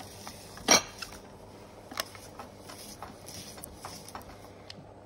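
Hand-cranked spiral slicer cutting a potato into spaghetti strands, with metallic clicks and one sharp clack about three-quarters of a second in.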